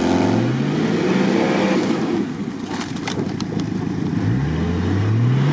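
Off-road 4x4's engine revving as it works through deep peat mud, its pitch climbing briefly at the start and again in a long rise near the end.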